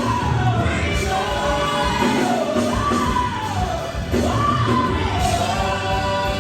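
Live gospel music: a solo singer's voice sliding up and down between long held notes over a band with bass.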